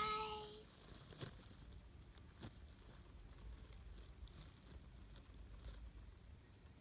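Near silence, with a child's voice trailing off in the first half-second and a few faint scattered clicks and rustles after it.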